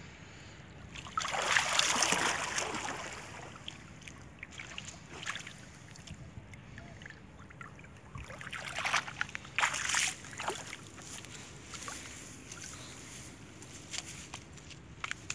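Shallow muddy water sloshing and splashing as people wade and reach into it by hand. There is a louder surge of splashing about a second or two in, and another cluster of splashes around the middle, with small drips and trickles in between.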